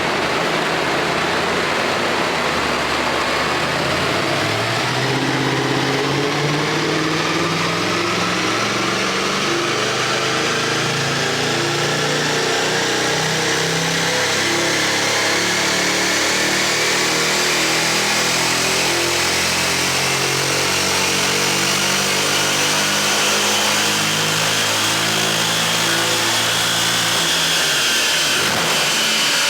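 Mercedes E63 AMG's twin-turbo V8, Stage 2 tuned with an aftermarket exhaust, running under long steady load. Its pitch climbs slowly for most of the time, then drops away near the end.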